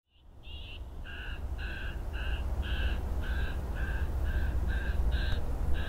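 A bird giving a rapid series of harsh calls, about two a second, a dozen in all, over a steady low rumble; the sound fades in at the start.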